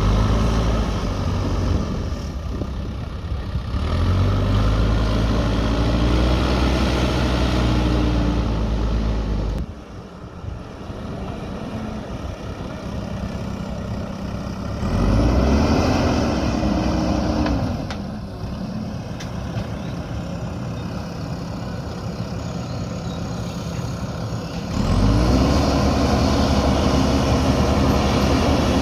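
JCB backhoe loader's diesel engine running and revving up under load three times, each rise held for a few seconds before dropping back toward idle.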